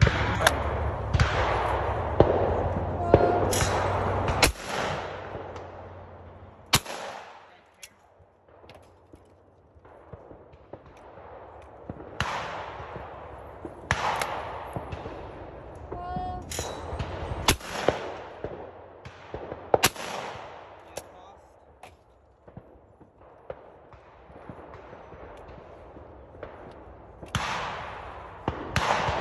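Shotgun shots on a clay-shooting course. They come at irregular intervals, some single and some in quick pairs. The near ones are loud with a long echoing tail, and others are distant and faint.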